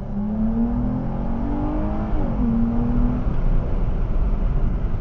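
Chrysler 300's 3.6-litre Pentastar V6, fitted with an AirAid cold air intake and throttle body spacer, pulling under acceleration. The engine note rises in pitch for about two seconds, drops sharply, then holds steady, over a steady road rumble.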